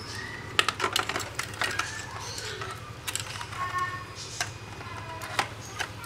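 Irregular clicks, taps and scrapes of hard plastic as a washing machine's control circuit board is handled and pushed into its plastic button-panel housing, in clusters about a second in and again around three to four seconds in.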